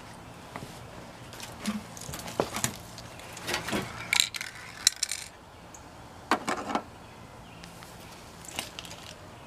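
Aerosol spray paint can and its plastic cap being handled: a series of short clicks and knocks, busiest about four seconds in and again around six and a half seconds.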